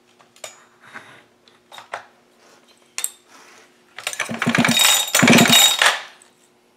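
Hand work on a Husqvarna 572 XP chainsaw's freshly fitted cylinder while its squish clearance is checked: a few sharp metal clicks and clatters, then about four seconds in a louder, dense two-second burst with a fast rattle in it.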